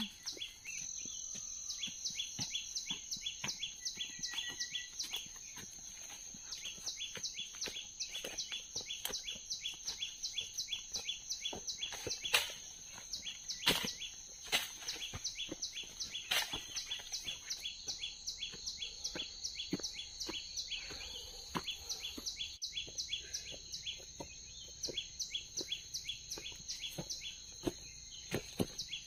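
Insects calling in forest: a steady high-pitched buzz pulsing several times a second, with a few scuffs of footsteps on the leaf-littered path.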